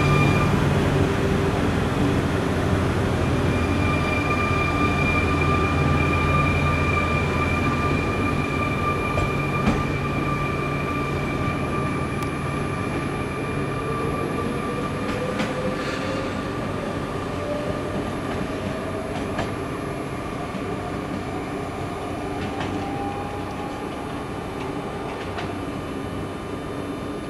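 RER B Z 20900 electric multiple unit pulling away: a steady low hum and whine, then from about halfway a motor whine rising slowly in pitch as it gathers speed, the whole sound fading as the train draws away.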